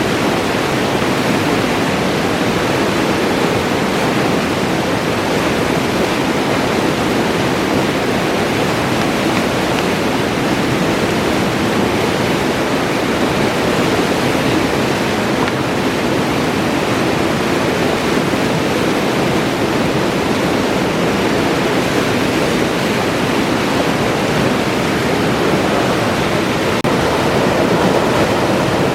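Alpine river flowing, a steady loud rush of water that does not change.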